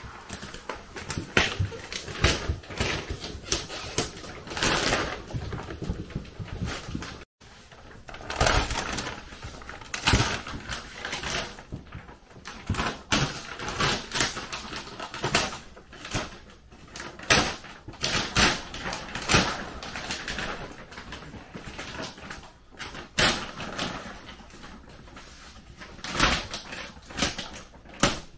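Thick plastic vacuum-packing film crinkling and rustling in irregular bursts as it is pulled and peeled off a compressed mattress.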